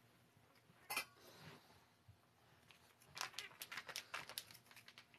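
Faint metallic clinks and rattles of stainless steel pet food bowls being handled: one tap about a second in, then a quick run of small clinks for about two seconds.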